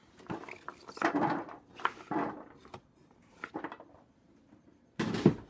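Cubes of raw butternut squash being scooped by hand off a wooden cutting board and dropped onto a metal sheet pan: a few soft scrapes and knocks, then a louder clatter near the end.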